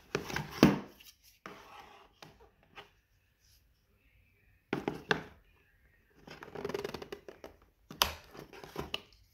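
Handling noise of a Ruger Wrangler .22 single-action revolver being picked up and worked by hand: several short bursts of small metal clicks and rubbing, with a sharp click about eight seconds in.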